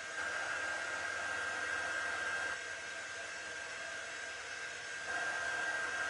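Steady whir of a small electric blower with a high, steady whine, dropping in level about two and a half seconds in and coming back louder about five seconds in.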